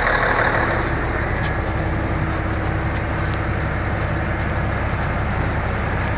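A heavy engine running steadily, a deep even hum with a few faint clicks over it.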